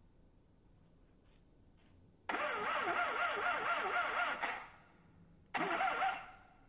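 A four-cylinder car engine being cranked by its starter twice: first for about two seconds with a rhythmic rise and fall in pitch, then a short second burst.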